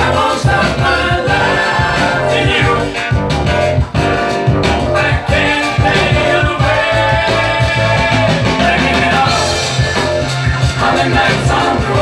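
A man singing into a microphone over loud backing music with a steady bass beat.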